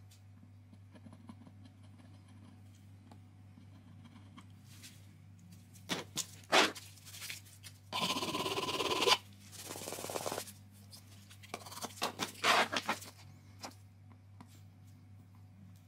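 A cloth pad rubbed briskly over laminate flooring, buffing a hard-wax burn repair, in two long strokes about eight seconds in. Short scrapes and taps from the soldering iron tip and wax stick come before and after, over a steady low hum.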